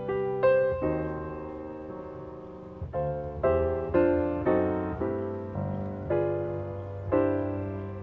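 Background piano music: a slow run of single notes and chords, each struck and left to ring and fade.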